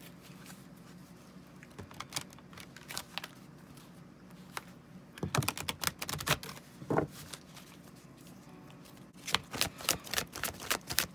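A deck of oracle cards being shuffled and handled, a rapid patter of card clicks and flicks in three spells, the louder spells about halfway through and near the end.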